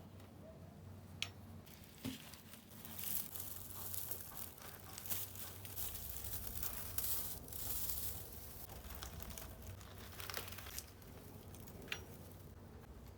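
Crinkling and rustling of something being handled for several seconds, with a few sharp clicks before and after.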